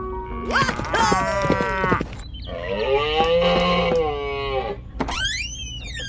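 Cartoon-style sound effects laid over the soundtrack: a sliding pitched call, then a long wavering held note, then quick whistle-like swoops rising and falling near the end.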